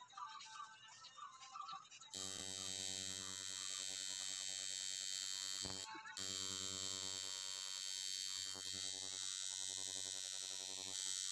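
Electric tattoo machine buzzing steadily as its needle inks the skin of a man's chest. It starts about two seconds in and cuts out briefly near the middle before running on.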